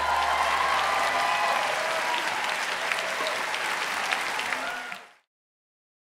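Concert audience applauding and cheering as a song ends, while the band's last low note dies away in the first second. The applause cuts off abruptly about five seconds in.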